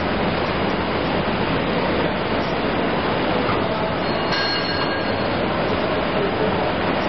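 SG-3 semi-automatic folder gluer running steadily, its feed rollers and belts carrying corrugated cardboard sheets through: a dense, even mechanical clatter. A faint high tone joins about four seconds in.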